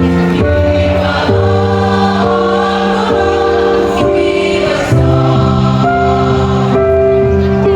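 A choir singing in harmony, holding sustained chords that shift roughly every second.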